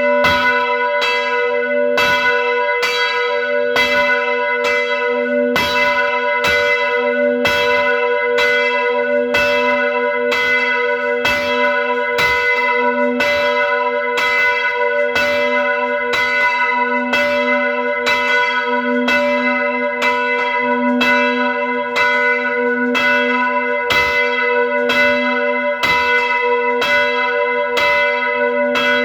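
Church bell rung by rope, tolling in fast, even strokes, about three every two seconds. Each stroke rings on into the next over a steady low hum.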